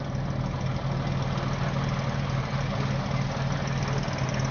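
Rally car engine idling steadily with a constant low hum, not revving.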